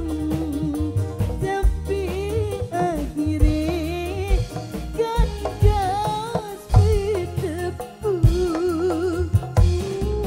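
Live dangdut band music: a woman sings an ornamented, wavering melody with vibrato through a microphone, over a steady drum and bass beat.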